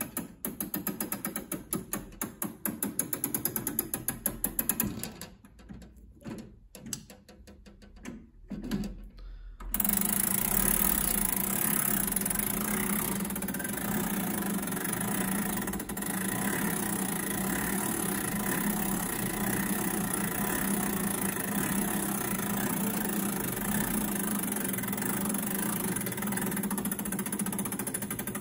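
Two-weight longcase clock being wound with a crank key: rapid ratcheting clicks from the winding arbor's click and ratchet as a weight is drawn up, then a sparser, quieter stretch. From about ten seconds in, a steady drone with a constant hum starts suddenly and covers the rest.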